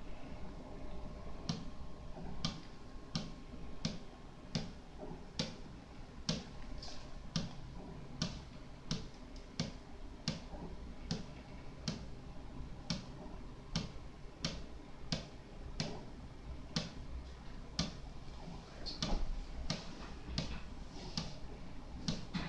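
RepRap-type 3D printer running: a steady low hum with sharp ticks, about one to two a second at uneven spacing.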